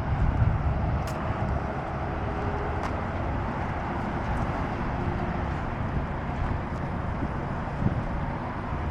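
A car moving slowly, a steady low rumble of engine and tyre noise, with a few faint ticks.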